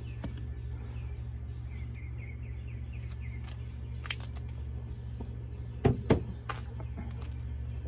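Scissors snipping the excess off a rubber tyre-plug strip: a few sharp clicks, the loudest two close together about six seconds in. Under it runs a steady low hum, with birds chirping faintly.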